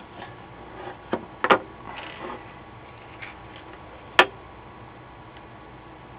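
Clicks and knocks of a circuit board and soldering tools being handled on a workbench: a quick cluster of sharp clicks about a second and a half in, then one sharp click about four seconds in.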